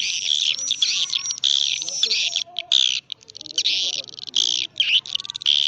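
Swiftlet calling-sound recording (suara panggil walet) of the kind played to lure swiftlets into a nesting house: rapid, dense twittering chirps and downward-sweeping trills, broken by short pauses about three seconds in and near five seconds.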